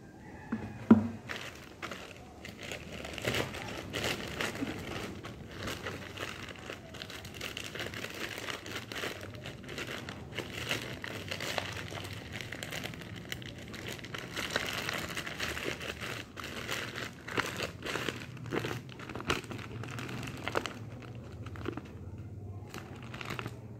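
A thin plastic courier mailer bag being handled and pulled open by hand: continuous irregular crinkling and crackling. It thins out near the end.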